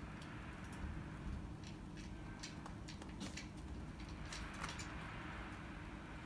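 A low steady hum with scattered faint ticks and clicks.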